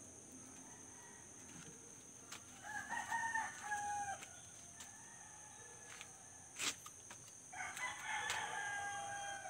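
Roosters crowing: two long, held crows, the first about two and a half seconds in and the second near the end, with a single sharp click between them.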